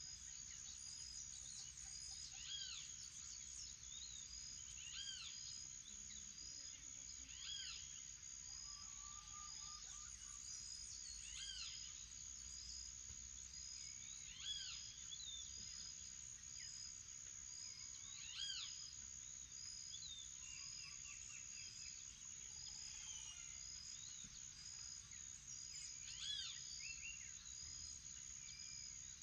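Morning birdsong over insects. One bird repeats a short, arched, whistled call every few seconds, and other birds call faintly. Underneath runs a steady high insect drone with a regular chirping pulse about once a second.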